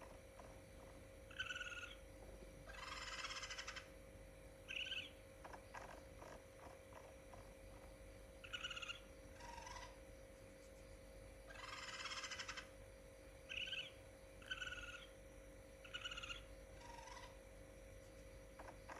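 A raccoon calling: a string of short, high chirping calls, broken twice by a longer rattling trill, over a faint steady hum.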